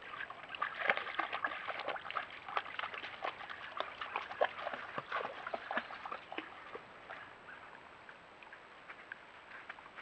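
Creek water splashing and sloshing: a dense run of quick small splashes for about the first six seconds, then fewer and fainter.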